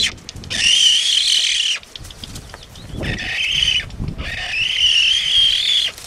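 Frigatebird calling: harsh, wavering calls over a second long, repeated about every two seconds, three in a row with the middle one weaker.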